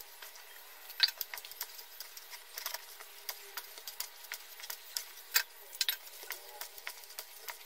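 A spoon stirring steamed rice flour and hot water in a stainless steel bowl: irregular scrapes and taps against the bowl, with a sharper knock about a second in, as the flour is worked into kozhukattai dough.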